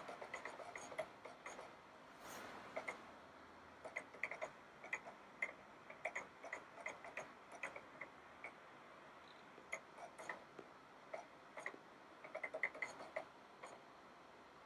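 Faint, irregular clicks and ticks, some in quick clusters, from the iBook G4's MATSHITA optical drive seeking and reading the Mac OS X install DVD as Disk Utility loads from the disc.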